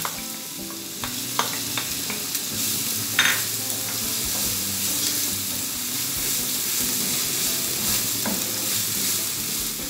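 Chopped onion and garlic sizzling steadily in hot oil in a non-stick frying pan, stirred with a wooden spoon that scrapes and taps against the pan now and then.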